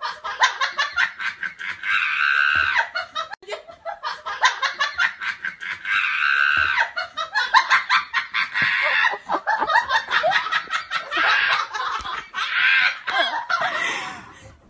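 Laughter in rapid, high-pitched bursts, going on without a break and falling into a similar pattern about every four seconds.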